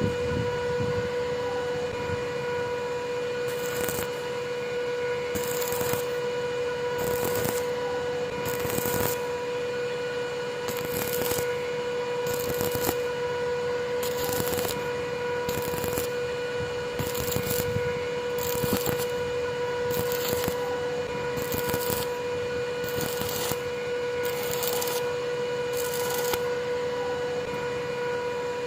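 Steady, pitched electrical hum throughout. From about four seconds in, a regular series of hissy scraping strokes repeats about once every one and a half seconds.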